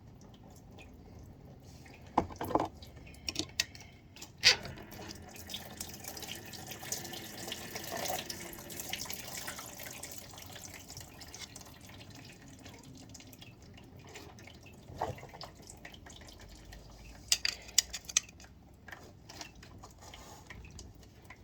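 Engine coolant running and splashing from a pulled radiator hose into a catch tub under a 2016 Arctic Cat 500 engine, strongest through the middle, with a few sharp clinks and knocks.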